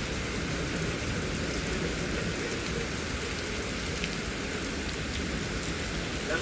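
Heavy rain falling steadily in a severe thunderstorm, an even, unbroken hiss.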